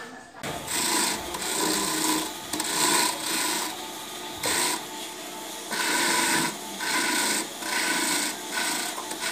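Small electric corn grater: ears of fresh corn pressed by hand against its spinning perforated steel drum, rasping in repeated strokes roughly once a second over the steady whir of its little motor.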